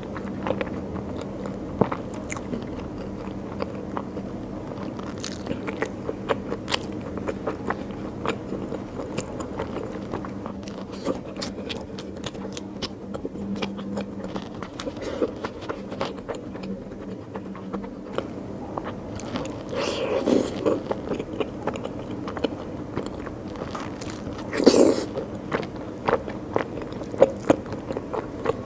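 Close-miked eating of rice and curry by hand: wet chewing with frequent short mouth clicks, and two louder bursts about 20 and 25 seconds in.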